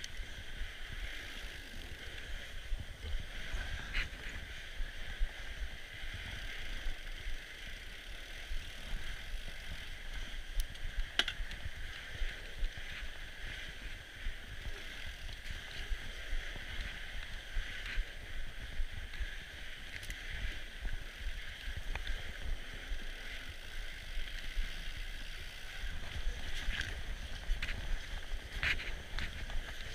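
Norco Bigfoot fat bike rolling along a packed snow trail, heard from a handlebar-mounted camera: a steady hiss of the wide tyres on snow over a low, uneven rumble of bumps and wind on the microphone, with occasional short clicks and rattles from the bike.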